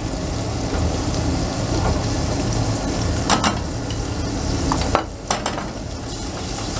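Onion and seasoning frying in olive oil in a stainless-steel pot, sizzling steadily. A few light knocks of a wooden spoon against the pot are heard in the second half as stirring begins.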